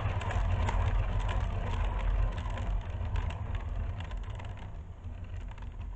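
Wooden lazy-susan turntable spinning a poured canvas, its bearing giving a steady low rumble with scattered light ticks, fading steadily as it coasts down toward a stop.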